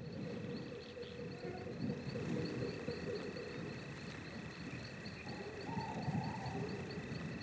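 Outdoor nature ambience: insects chirping in a steady, evenly pulsing high trill of about four pulses a second, over a low rumble, with a short bird-like call about six seconds in.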